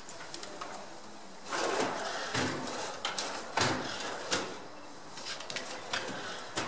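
Handling noise from a man leaning into an open car engine bay: a stretch of rustling, then a few separate sharp clicks and knocks.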